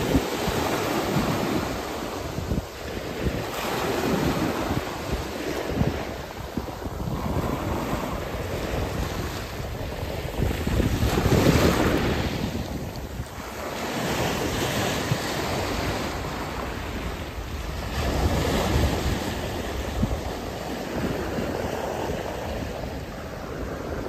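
Small sea waves breaking and washing up a shingle beach, swelling and easing every few seconds and loudest about halfway through, with wind buffeting the microphone.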